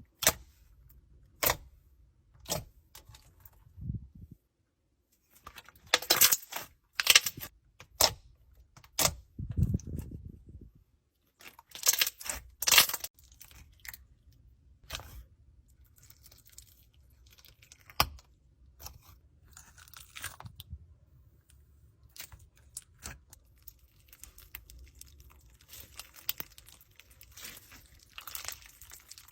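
Slime being squished and played with close to the microphone: irregular crisp clicks, crackles and crunchy pops, thickest about six to eight seconds in and again around twelve to thirteen seconds, then sparser.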